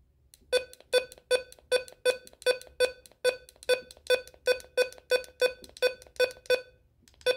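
Midland HH54VP weather radio's keypad beeping at each button press while its clock is being set: a steady run of short, identical beeps, about three a second, then one last beep near the end.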